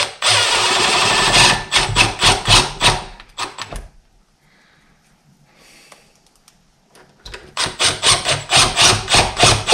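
Screws being driven into the wooden door edge to hold a deadbolt latch: a steady run, then rapid even strokes, a pause of a few seconds, then a second run of rapid strokes for the next screw.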